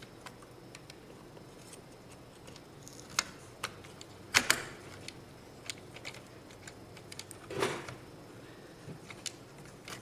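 Scattered plastic clicks and snaps of memory modules and their slot latches being handled in an HP ProLiant DL360 G7 server's DIMM slots, with a louder double click about halfway through and a longer scraping click a little later.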